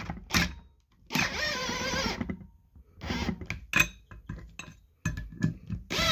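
Cordless driver running the helix bolts of an Arctic Cat reverse cam secondary clutch most of the way down, in three short whirring bursts whose pitch wavers as the bolts take up. Between the bursts the socket clicks and clinks as it is moved onto the next bolt.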